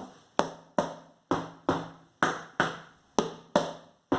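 Small wooden spoon striking a household object used as a makeshift drum, a steady beat of knocks at about two a second, each dying away quickly.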